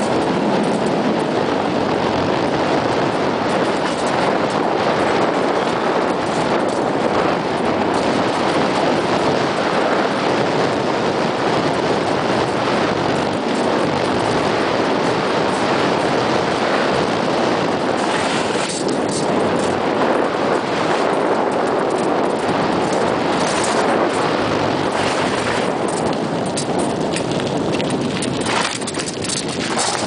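Bicycle tyres rolling fast downhill over a gravel path, a continuous crunching, rattling noise from the tyres and the shaking bike.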